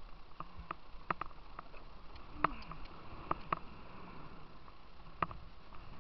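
Moving river water around a plastic whitewater kayak: a steady rushing hiss, with scattered sharp taps and splashes of water against the hull, loudest about two and a half seconds in and again about five seconds in.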